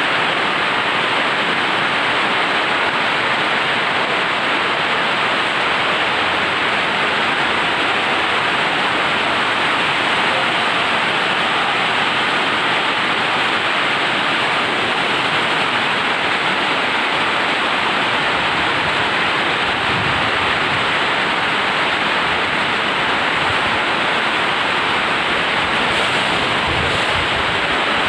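Heavy rain falling in a steady, even downpour, with a few faint low rumbles near the end.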